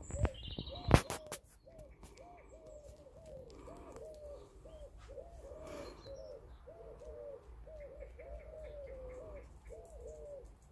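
Pigeon cooing, a steady run of soft rolling coos about two or three a second. A few high chirps from small birds come at the start, and there is one sharp knock about a second in.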